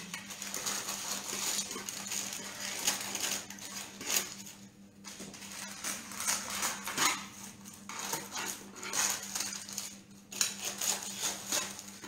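Baking parchment crinkling and rustling as its excess edge is cut and folded down around a cake tin, in an irregular run of small crackles with a couple of brief pauses.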